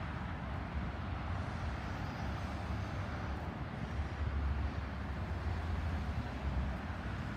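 Steady outdoor background noise: a low rumble that rises and falls under an even hiss, a little louder about four to five seconds in.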